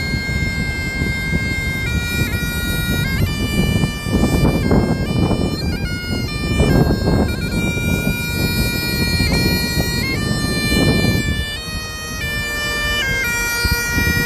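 Great Highland bagpipe playing a tune: the chanter steps through melody notes over the steady drones. Beneath it, a low rushing noise swells a few times.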